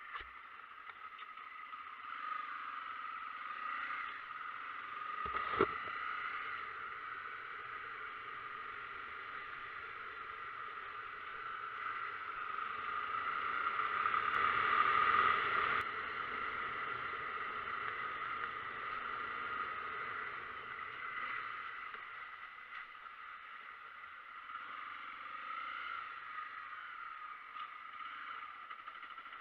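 Muffled riding noise of a Honda XRE 300 motorcycle, engine and wind blended into a steady rush. A single sharp thump comes about five and a half seconds in, and the noise swells louder around the middle.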